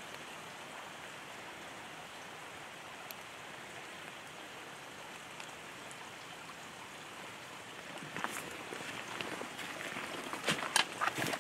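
Steady rain falling on the forest. About eight seconds in, footsteps on wet leaf litter start, growing louder near the end.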